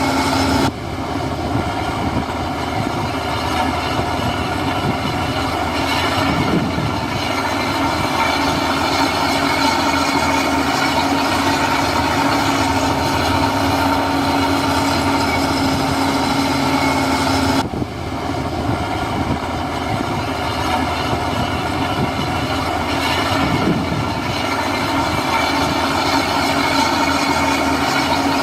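Heavy diesel construction machinery running steadily, with a constant engine hum and clatter. The sound changes abruptly about a second in and again about two-thirds of the way through.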